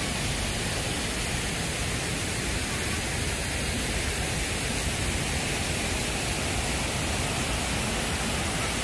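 Steady rush of fountain water: jets splashing and water spilling over a stone basin rim.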